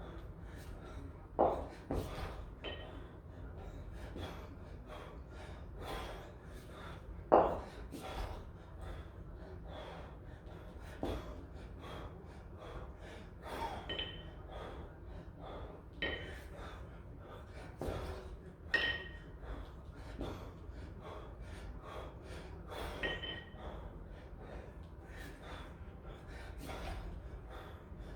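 A kettlebell lifter breathing hard and forcefully in short gasps and snorts during a long-cycle set with two 24 kg kettlebells. Now and then come sharp metallic knocks and brief clinks with a ringing ping as the bells knock together and land in the rack; the loudest knocks fall about 1.5 s and 7 s in.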